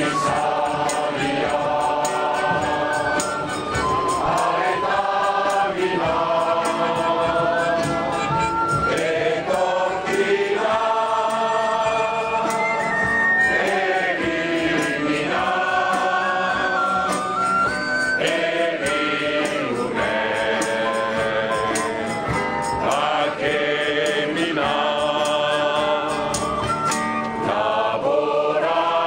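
A crowd singing a Basque song together in unison, in sung phrases of a few seconds each, accompanied by acoustic guitars.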